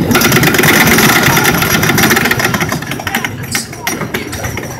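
The Beast's wooden roller coaster train rolling along its track: a sudden loud rushing rattle full of clacks that thins after about two seconds into scattered clacking.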